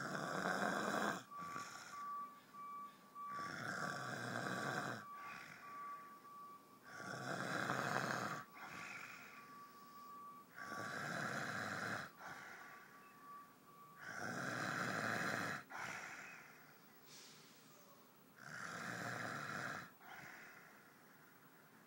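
A man snoring in a steady rhythm: about six loud snores, each a second or so long, one every three to four seconds, with quiet breaths between.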